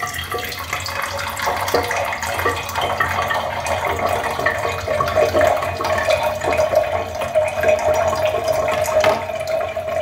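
A thin stream of reverse-osmosis water from a three-way kitchen tap runs into a wine glass standing in a stainless-steel sink, splashing steadily. A ringing tone in the splash grows stronger about halfway through.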